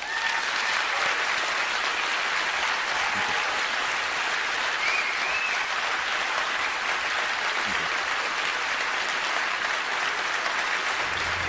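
Large theatre audience applauding steadily after a talk ends. Music comes in just before the end.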